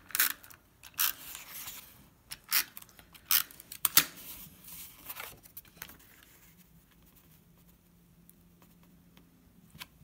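Cardstock being handled, slid into place and pressed down by hand on a work mat: a handful of short papery rasps and taps, mostly in the first five seconds or so.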